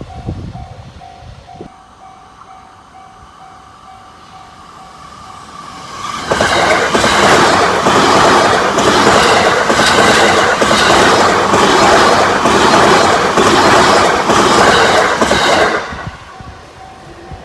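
A Japanese level-crossing warning bell rings in a steady repeating ding. About six seconds in, a train passes at high speed: a loud rush of wheels and air with rapid, even clicks of the wheels over rail joints, lasting about ten seconds. The crossing bell is heard again near the end.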